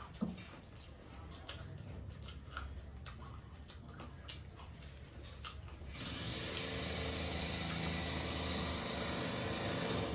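Close-up crunching while chewing jhal muri, a crisp spiced puffed-rice mix, in irregular crunches. About six seconds in, a louder steady hum and hiss starts abruptly.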